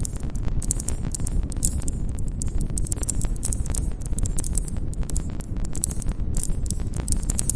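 Campfire crackling: a dense run of sharp wood snaps and pops over a low rumble of burning, with crickets chirping high above it.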